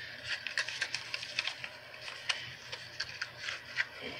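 Light clicks, taps and rustling of fingers handling a small cardboard box and the hard plastic toy purse inside it.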